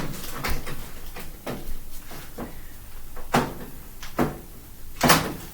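Handling noise: a series of about six separate knocks and clicks spread unevenly, the loudest near the end, with no motor running.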